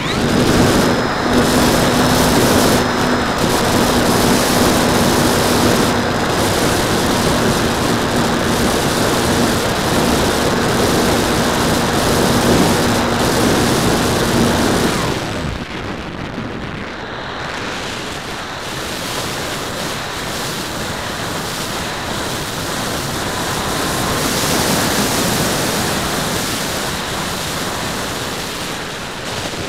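Electric hotliner's motor and propeller running under power with a steady tone over rushing air as the plane climbs, heard from an onboard camera. About halfway through the motor cuts off, leaving only the rush of air over the airframe as it glides.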